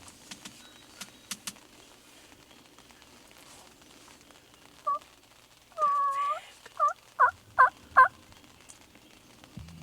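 Turkey calling: a short yelp, a longer drawn-out note, then four quick, sharp yelps about 0.4 s apart. A few faint clicks come just before.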